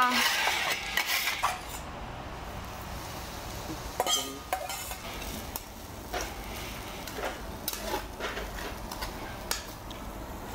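Metal spatulas chopping and scraping fried rice on a large stone griddle plate. A rapid clatter of strikes comes in the first second and a half, then scattered taps and scrapes over a faint sizzle. There is one sharp ringing clink about four seconds in.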